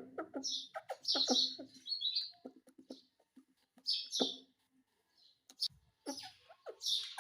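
Pet parrot chattering in a string of short chirps and squawks, with a couple of brief pauses between bursts.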